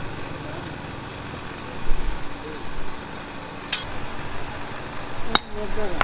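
Two sharp metallic clinks of steel against a steel anvil, about a second and a half apart, each with a brief ring, over low background noise.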